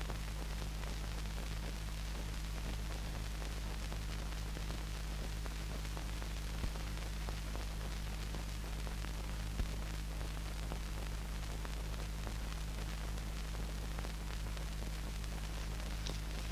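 Steady hiss and low hum of an old black-and-white film's soundtrack with no dialogue or music, broken by a couple of faint clicks.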